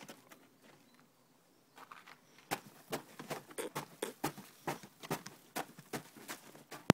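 A dog crunching and chomping snow: a run of crisp crunches, about three a second, starting about two and a half seconds in, ending with one sharp, loud click.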